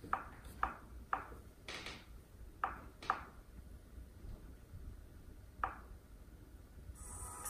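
Sparse, quiet background music: a handful of single pinging notes with ringing tails, spaced irregularly, most of them in the first three seconds and one more a little before the end.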